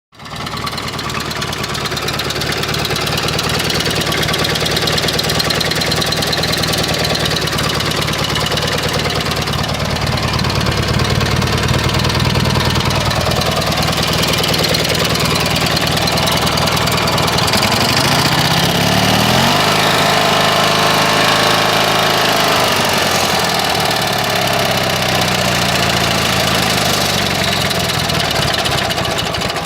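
Old Sears lawn tractor's engine running on its first run. It runs steadily, is revved up about two-thirds of the way through, holds there a few seconds, then drops back to a lower speed.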